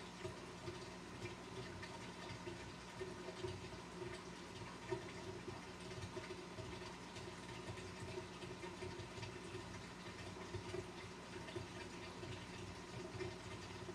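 The pump of a 200-gallon aquarium running steadily, with a low hum and water trickling and burbling over it.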